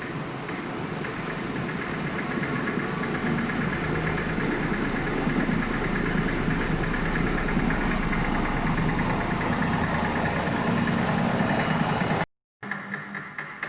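Haier HW70-BP12758S washing machine drum spinning up and getting steadily louder, with a knocking rattle. The knock is the sign of the short, taut motor wire slapping the plastic cover of the motor's power unit as the drum sways. After a sudden break near the end comes a quick run of fading knocks.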